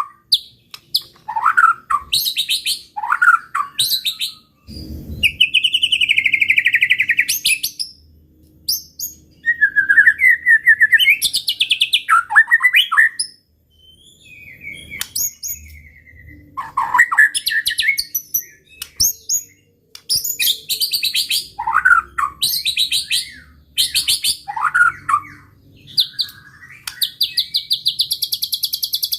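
A white-rumped shama singing loudly in full song: separate phrases of sliding whistles and fast rattling runs of repeated notes, with brief pauses between them. This is the kind of song used to provoke rival shamas. There is a low thump about five seconds in.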